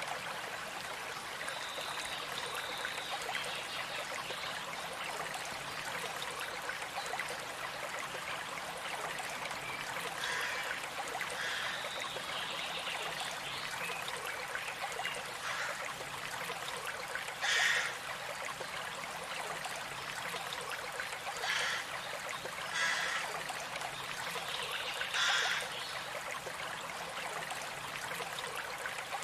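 Stream water running steadily. A thin, high, held bird note sounds near the start and again about halfway through. Several short, louder sounds come through the water in the second half, the loudest about two-thirds of the way in.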